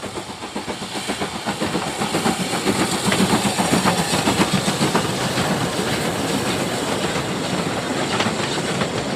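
Narrow-gauge steam locomotive working, with rapid exhaust chuffs over a steady hiss of steam, growing louder about three seconds in.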